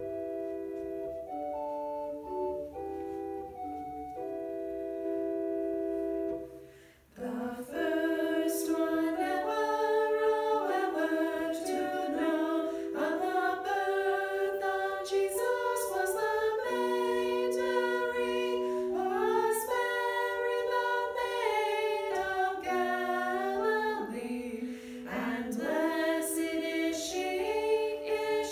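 An organ-like keyboard accompaniment holding steady chords for about seven seconds, then three women's voices singing a hymn together over it, with the accompaniment continuing.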